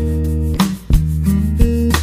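Background instrumental music: guitar over a held bass line, with a sharp beat about every second and a bit.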